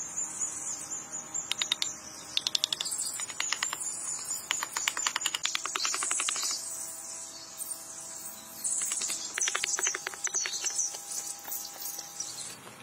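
Runs of rapid, light knocks of wood on wood as wooden blocks are tapped into place, coming in several bursts, over a steady high chirring of insects.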